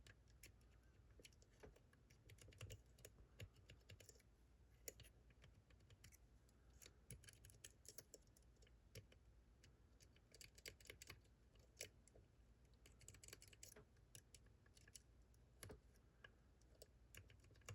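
Faint, irregular small clicks and taps of a probe pick working the pins of a Fontaine seven-pin pump lock under tension, some coming in quick clusters.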